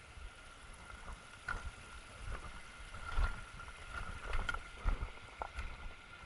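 Footsteps of a hiker walking down a mountain trail: irregular knocks and scuffs, louder in the second half, over a low wind rumble on the microphone and a faint steady high whine.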